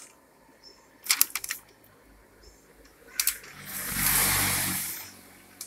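A few plastic clicks from the copier's parts being handled, then a swell of paper rustling and sliding for about a second and a half as a jammed sheet is drawn out through a photocopier's rollers.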